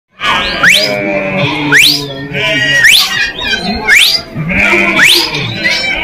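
Background music with a sharp, whistle-like rising sweep repeating about once a second over low, wavering sustained tones.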